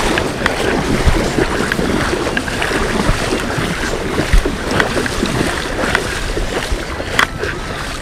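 Shallow river water splashing as a hooked fish thrashes at the surface close in, with wind buffeting the microphone and scattered sharp clicks.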